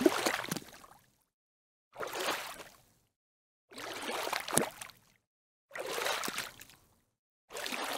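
A splashing water sound effect that comes in short bursts about a second long, one roughly every two seconds, with dead silence between them.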